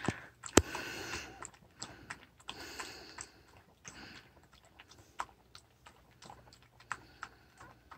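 A dog lapping milk from a bowl: a run of quick, irregular wet clicks from tongue and bowl, with one sharper knock about half a second in.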